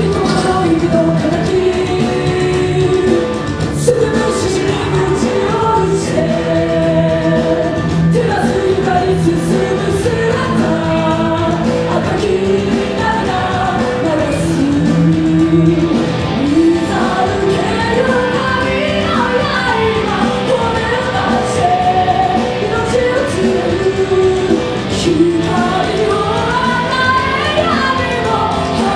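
A band playing a song with a singer: a sung melody over guitars, with a low note held underneath.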